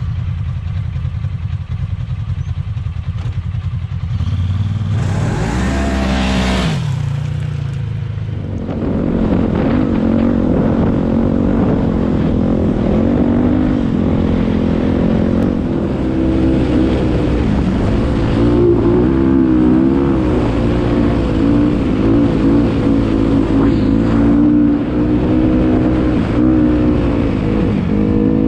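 Off-road vehicle engines: a low rumble at first, then about five seconds in an engine's pitch sweeps quickly down, and from about eight seconds on a single-cylinder four-stroke Honda CRF dirt bike engine runs steadily at riding speed, its pitch rising and falling a little with the throttle.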